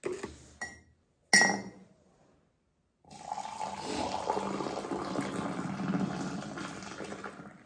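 A spoon clinks against a jar about a second in. From about three seconds in, water pours in a steady stream from an aluminium saucepan into a ceramic mug for about four and a half seconds.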